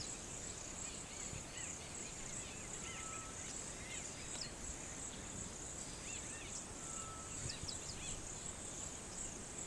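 Steady high-pitched shrill of a cricket or insect chorus, with scattered faint bird chirps and a short single-note whistle repeated about every four seconds.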